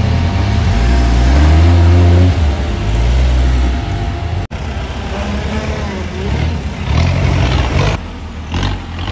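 Modified off-road 4x4 engines revving under load as the vehicles climb a muddy trail. The pitch rises and falls over the first few seconds, and after a cut about halfway through another vehicle's engine revs in short bursts.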